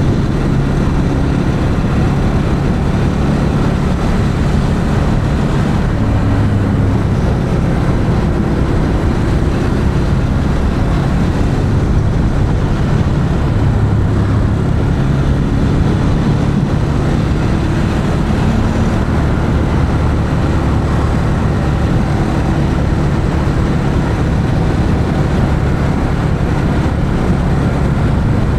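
2021 Ducati Monster 821's V-twin engine through its stock exhaust, running under way on the road. Its pitch shifts up and down repeatedly as the revs change.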